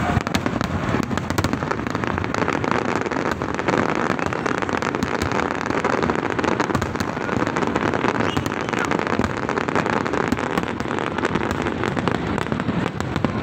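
Large fireworks display: many aerial shells bursting in a dense, unbroken barrage of overlapping bangs and crackles.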